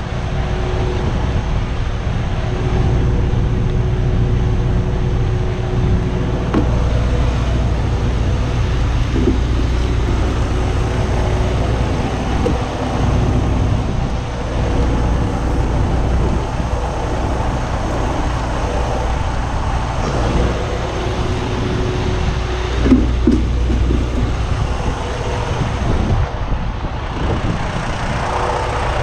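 Semi truck's diesel engine idling with a steady low hum, joined by a few brief knocks and scrapes from a windshield squeegee.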